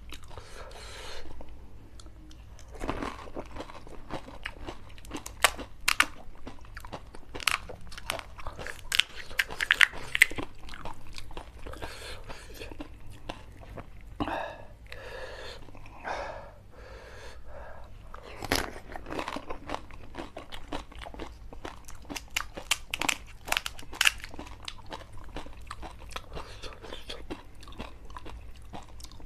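Close-up crunching and chewing of crisp pani puri (golgappa) shells, with repeated sharp, irregular cracks as the shells are broken and bitten, and softer wet chewing between them.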